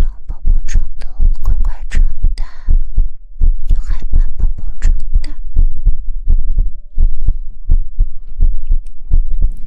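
Rapid soft thumps, several a second, with some brushing, from hands patting on a binaural ASMR microphone in a soothing patting rhythm, pausing briefly twice.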